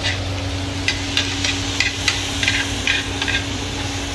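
Light clicks and taps of chopsticks against plates and the tabletop barbecue grill, about three a second, over a steady low hum and faint hiss.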